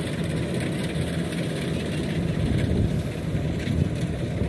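Kubota DC93 rice combine harvesters' engines running steadily, a low drone heard from a distance.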